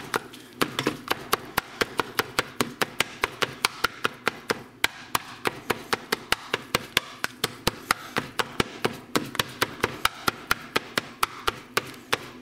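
Black plastic meat chopper tapping rapidly against a nonstick frying pan as it breaks up browning ground beef, about four or five sharp taps a second.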